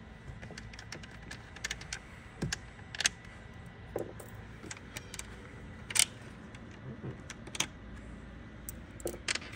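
Irregular light clicks and taps of small stainless-steel acorn nuts being spun off their studs by hand and handled against the jet ski's plastic engine cover, with a few sharper clicks among them.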